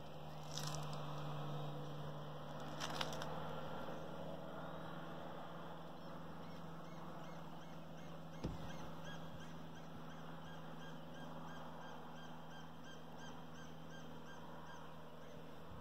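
Outdoor forest ambience under a steady low hum, with a few short knocks in the first half. From about halfway, a high call repeats rapidly, about three times a second.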